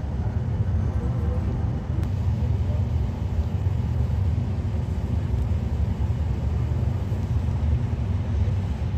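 Steady low rumble inside an air-conditioned double-decker express train coach as it rolls slowly out of a station.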